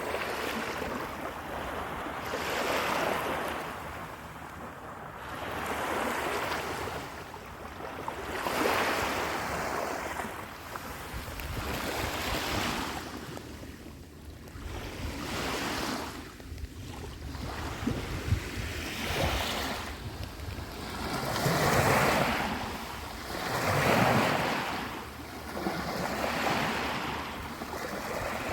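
Sea waves washing in and drawing back, the surf swelling and fading every few seconds, with wind rumbling on the microphone.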